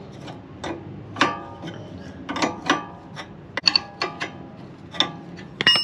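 Hand wrench and ratchet clicking and clinking in irregular strokes while loosening the nut on the rear sway bar link, metal on metal with a short ring after each click, and a quick cluster of brighter clinks near the end.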